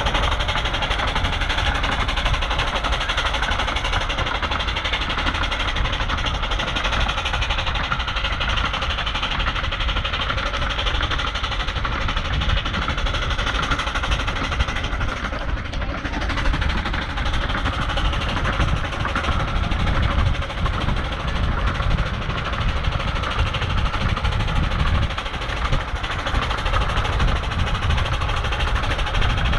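15-inch gauge steam locomotive Bure Valley Railway No. 8 working hard with a heavy train of about a dozen coaches: a steady, continuous exhaust and running noise throughout.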